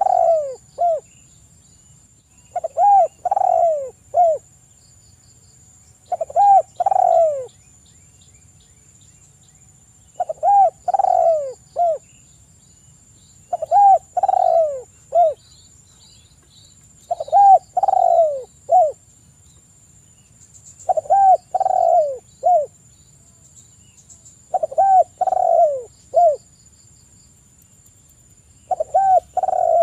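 Spotted dove (tekukur) cooing: a phrase of three or four arched coos, repeated at an even pace about every three and a half seconds.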